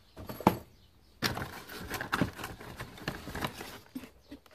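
Handling noise from a soft carry case and cardboard box being picked up and turned over: a sharp click, then a couple of seconds of rustling and scraping with small knocks.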